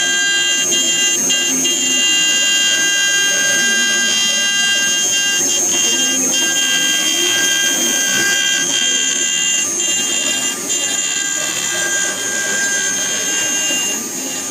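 Small CNC router engraving wood: a steady high whine of unchanging tones from the spindle, over a shifting, rougher lower noise as the cutter works.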